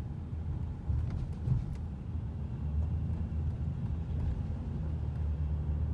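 Long Island Rail Road commuter train running, heard from inside the car: a steady low rumble, with a few faint clicks about one to two seconds in.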